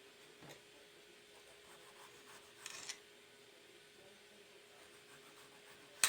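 Faint kitchen handling noises of pizza toppings being prepared, with light rubbing and scraping and a short scrape about two and a half seconds in. A single sharp click near the end is the loudest sound.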